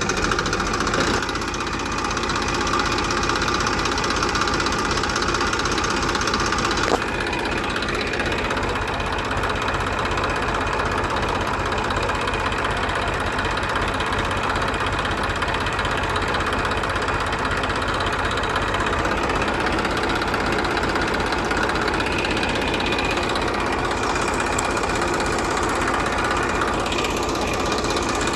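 Tractor engine running steadily with an even, rapid knocking beat.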